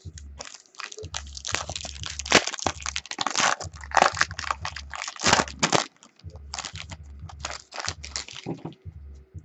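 Crinkling and tearing of a trading-card pack wrapper being ripped open and handled: a dense run of rustling crackles with short pauses.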